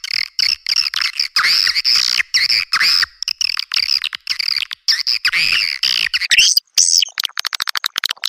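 Swiftlet calling sound, the lure call used to draw edible-nest swiftlets to a bird house: dense, chirping twitters, then a fast run of clicks near the end.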